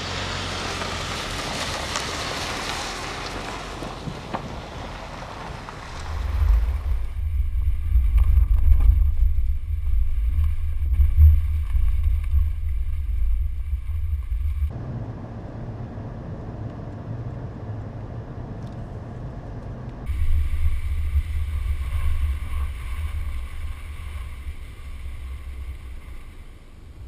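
Car driving on a gravel dirt road, heard from a microphone right beside the front wheel: hissing tyre and gravel noise, then a deep rumble of wind buffeting and road noise that cuts in and out with the shot changes.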